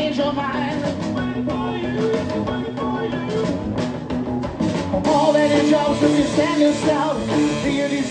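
Live rock and roll band playing an instrumental passage between sung lines: drum kit, guitars and saxophone.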